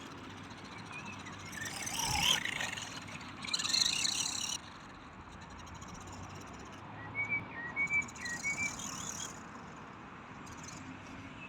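High-torque electric RC car motor and drivetrain whirring in short bursts of acceleration: two loud bursts in the first half, then a weaker one in the middle. Small birds chirp a few times in the middle.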